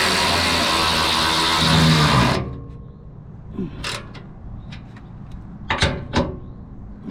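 A loud, steady rushing noise that stops suddenly about two seconds in, followed by a few sharp knocks and clinks of metal parts or tools being handled.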